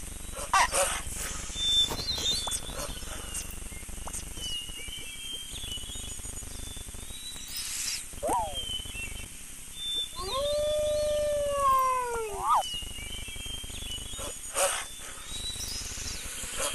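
Wolves howling and yelping: one long howl that rises and falls, about ten seconds in, with short yelps and a few sharp barks around it.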